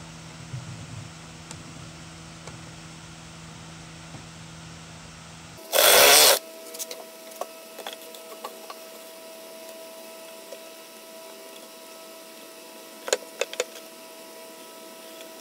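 Small clicks and taps of a hose fitting being handled and screwed in at the bottom of a wooden half-barrel tub, over a steady hum. A loud, brief rush of noise lasting under a second comes about six seconds in, and the low hum drops away after it.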